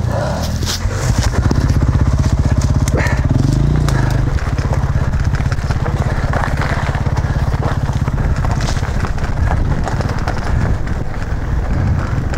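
A dirt bike's engine running close by at low, steady revs, under the rattle and crunch of bike tyres rolling over loose rock.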